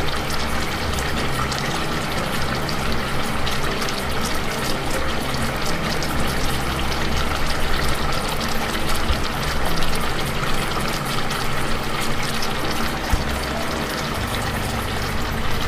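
Chicken tikka pieces sizzling in hot oil in a frying pan: a steady, dense crackle of popping oil.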